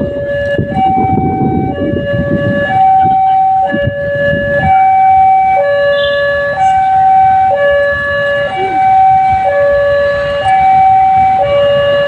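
Railway level-crossing warning alarm: an electronic two-tone signal alternating a high and a lower note, repeating about every two seconds, warning that a train is coming. A low rumble sits under it for the first few seconds.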